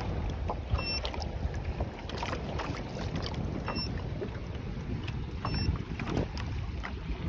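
Wind buffeting the microphone over water lapping and slapping against a floating bait boat's plastic hull, with three short high beeps spread through.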